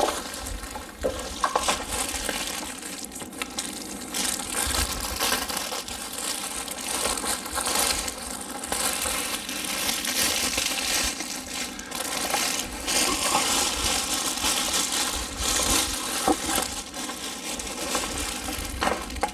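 Cardboard and plastic packing material rustling and crinkling as a new upright vacuum is unpacked from its box, with scattered small knocks of parts being handled.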